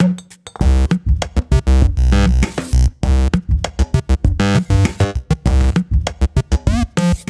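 Electronic background music with synthesizer and a fast drum-machine beat.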